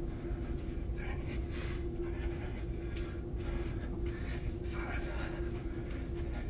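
A man breathing hard while exercising, with several short, noisy breaths spread through, over a steady low hum.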